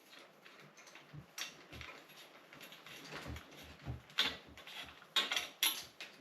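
Scattered light metal clicks and clinks from tools and bicycle parts being handled while the seized rear brake cable is cut away, with a few sharper snaps about four and five seconds in.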